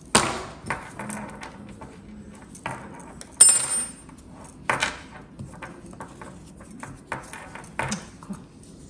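Handling noise of small metal crochet tools: a few separate sharp clicks and taps, the loudest a metallic clink with a brief high ring about three and a half seconds in.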